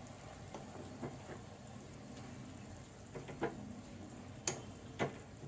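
Stainless-steel ladle stirring oats into simmering vegetables in a non-stick kadai, with a few light knocks of the ladle against the pan, the two sharpest near the end.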